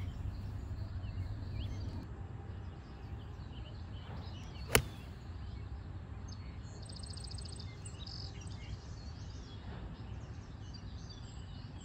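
A 7-iron striking a golf ball off the tee: one sharp click about five seconds in. Under it runs a steady low rumble of wind on the microphone, and a bird gives a quick high trill a couple of seconds after the strike.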